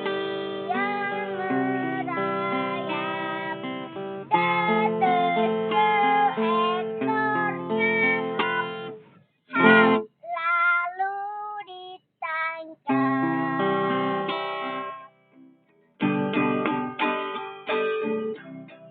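A young child singing to a strummed acoustic guitar. About halfway through, the guitar stops and the voice carries on alone for a couple of seconds before the guitar comes back in.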